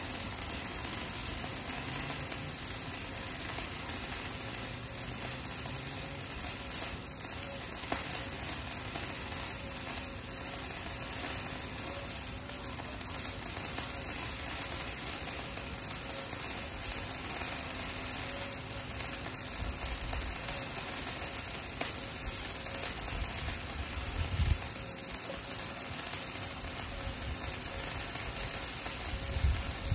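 Flux-core wire welding arc crackling steadily through a long vertical weld on a steel hinge, wire fed by a Miller suitcase feeder. A few low thuds come in the last few seconds.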